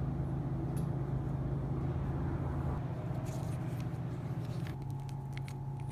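Steady low hum of room tone with a few faint clicks as the handlebars and stem bolts are handled. Near the end the background changes and a thin steady tone comes in.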